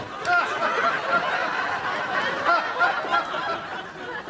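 Studio audience laughing: many people chuckling at once, easing off a little towards the end.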